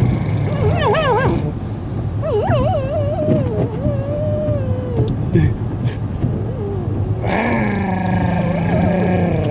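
A dog howling and whining in drawn-out, wavering "woo" calls, one long call sliding down in pitch, over the steady low rumble of a moving car.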